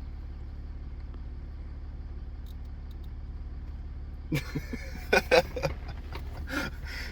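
Vehicle engine running, a steady low drone. From about four seconds in, several short, loud noises break in over it.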